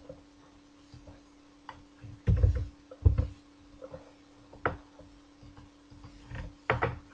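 Computer mouse and keyboard clicks with a few dull knocks on the desk, scattered irregularly over a faint steady hum.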